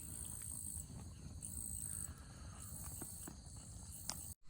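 Insects buzzing outdoors in regular pulses, each about half a second to a second long, over a low rumble with a few faint clicks; the sound cuts out suddenly near the end.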